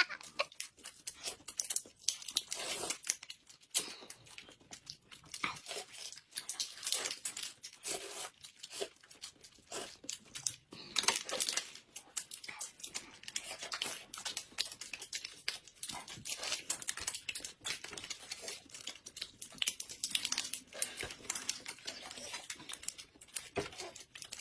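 Small plastic snack wrappers crinkling and being torn open, in irregular crackly bursts.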